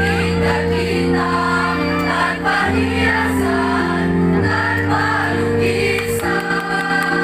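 Mixed high-school choir singing in parts, holding sustained chords that change about every two seconds.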